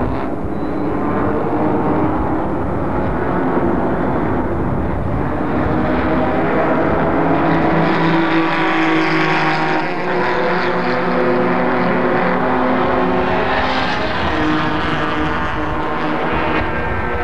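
Racing sedans' engines running hard on track, a steady engine drone whose pitch rises and falls as the cars accelerate and lift through the course.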